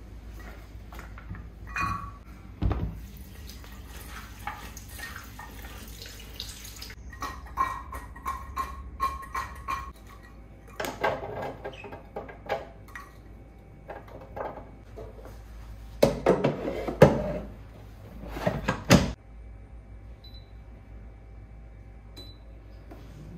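Kitchen prep sounds: cut vegetable sticks handled and knocked into a plastic colander and a metal air fryer basket, with water from the sink tap rushing in two short spells. Near the end, two faint short beeps from the air fryer's touch-panel buttons.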